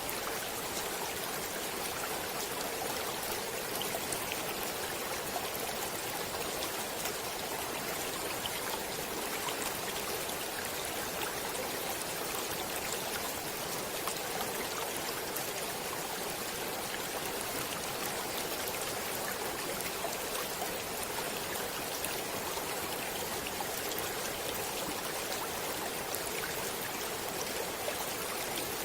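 Stream water flowing steadily: an even, continuous rush with many fine splashes and droplets.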